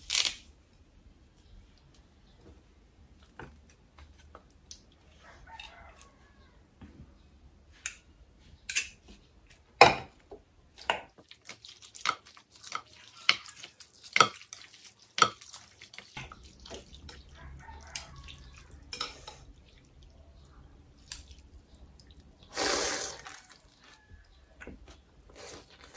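Close-miked eating sounds: a sharp snap of fresh greens being broken at the start, then clicks of chopsticks against a glass bowl and the liquid sounds of noodle soup being stirred. About 23 seconds in comes a loud slurp of noodles lasting about a second.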